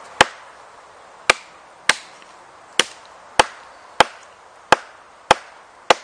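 A heavy Richard Kapeller / Joe Vogel survival knife chopping into a dry log: nine sharp blade-on-wood strikes at a steady pace of about one every half second, deepening a notch.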